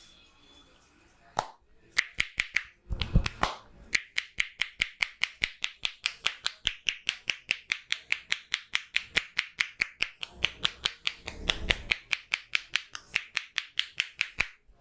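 Massage hand slaps: a barber striking the body with his hands in a rapid, even rhythm of about five slaps a second, starting about two seconds in and stopping just before the end, with a heavier, deeper patch twice.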